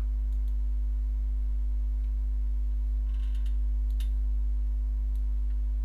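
Steady low electrical hum with a fainter steady higher tone above it, and a faint click about four seconds in.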